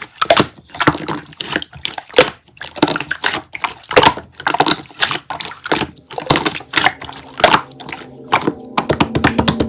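Slime being squished and poked by hand: an irregular run of sticky clicks, crackles and squelches, with faint background music coming in near the end.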